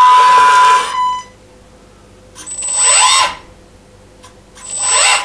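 Electric hydraulic pump of an RC4WD Bobcat R350 1:14 hydraulic track loader whining as it drives the loader arms and bucket. It runs steadily, cuts out about a second in, then spins up twice more in short bursts that rise and fall in pitch, the second near the end.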